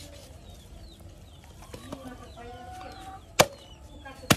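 Two sharp chops of a heavy knife through meat into a wooden chopping block, about a second apart, near the end.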